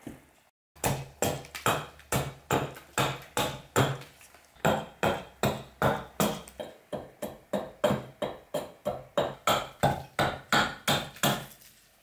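Hatchet chopping into a birch burl on a chopping block: quick, regular blows at about three a second, with two short pauses.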